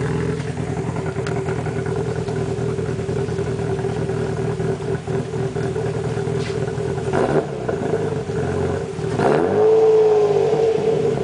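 Hyundai Tiburon's 2.7-litre V6, fitted with aftermarket camshafts, idling at the tailpipe. There is a quick blip of the throttle about seven seconds in, and a longer rev that rises and falls about two seconds later.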